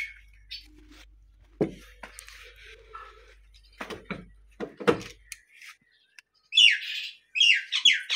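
A few clicks and knocks as a key is worked in a Suzuki car's door lock, then a bird's rapid, loud chirping near the end.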